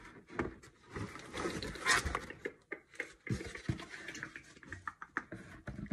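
Hard plastic 3D-printed helmet pieces being handled and fitted together: irregular taps, clicks and scraping of plastic against plastic.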